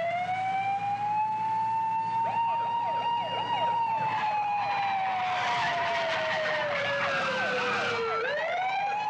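Police car siren wailing: a long, slow rise, then a gradual fall, rising again about eight seconds in. Quicker overlapping siren yelps come through around the middle, over a low engine hum.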